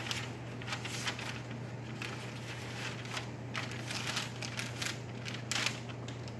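Sheets of drying paper rustling and crinkling in irregular bursts as they are folded over a plant specimen and pressed flat by hand, over a steady low room hum.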